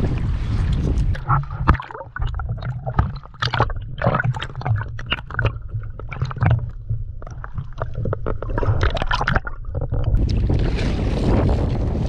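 Strong wind buffeting the microphone. Between about one and ten seconds in, the wind noise drops and a rapid, irregular series of knocks and clatters takes over, then the wind noise returns near the end.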